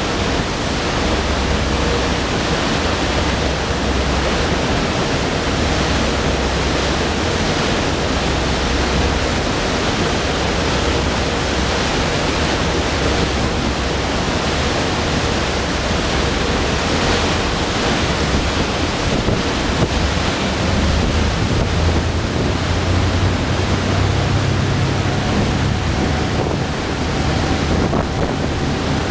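Fast passenger ferry's churning wake rushing loudly, with wind on the microphone. In the last several seconds a low engine drone grows stronger as the boat gathers speed and the spray builds.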